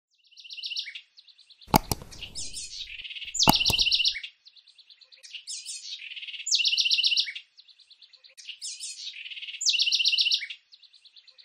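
Birdsong: short high trilled chirps in a phrase that repeats regularly about every three seconds. Two sharp mouse clicks sound about two seconds in and again a second and a half later.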